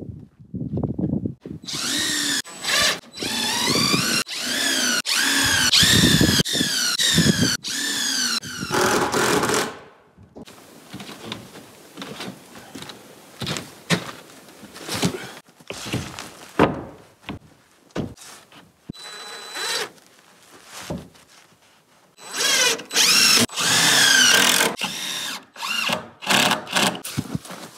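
Power drill driving screws into wood in repeated bursts, its motor pitch rising and falling as each screw runs in. A quieter stretch of knocks and clicks comes in the middle, then more driving near the end.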